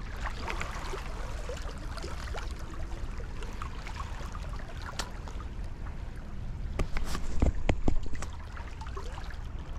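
Small waves lapping and trickling among the shoreline rocks, a steady watery wash, with a few louder low rumbles and knocks about seven to eight seconds in.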